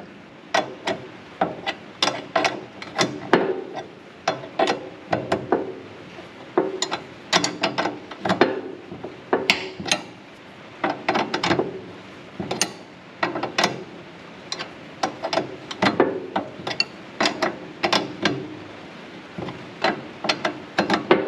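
Hand ratchet clicking in short, irregular runs as a nut is worked tight onto a mower-deck drive-shaft bolt in a cramped space.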